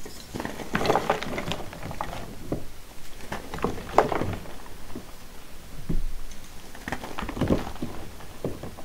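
Hands snapping and crushing dusty, glitter-coated charcoal blocks: a run of irregular crunches and crackles, with a sharp snap about four seconds in.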